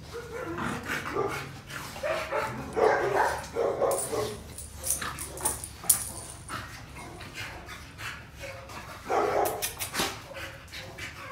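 A dog barking in short bouts, a few barks about three seconds in and again near ten seconds, with light clicks in between.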